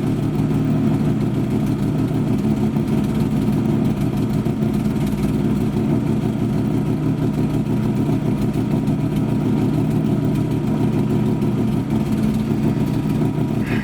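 A 1997 Ford Probe GT's KLZE 2.5-litre V6 idling steadily. The owner is chasing a misfire and an erratic idle in this engine and wonders whether it is a vacuum leak.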